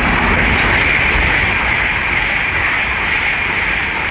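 LNER Azuma (Hitachi Class 800-series) express passing through the station at speed: a loud rush of wheel and air noise that peaks about a second in and slowly fades as the train goes by.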